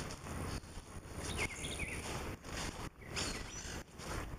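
Steady outdoor background noise with a low rumble on the microphone, and a few brief bird chirps, the first about a second and a half in and another about three seconds in.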